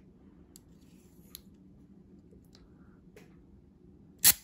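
A few faint clicks of a Western Arms airsoft magazine and pistol being handled during a feed test, then one loud, sharp snap near the end.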